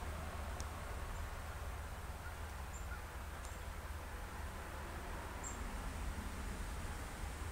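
Outdoor garden ambience: a steady low rumble with a few faint, short, high-pitched chirps from a small bird.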